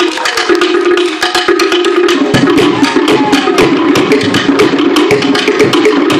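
Cook Islands drum-dance percussion: a fast, even rhythm of sharp wooden strikes over hand drums, with a deeper drum filling in about two seconds in.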